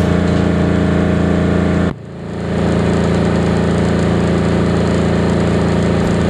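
Mosa generator's single-cylinder Yanmar diesel engine running steadily after a service, on GTL fuel, on which the owner thinks it runs more smoothly. About two seconds in the sound drops sharply and comes back within half a second.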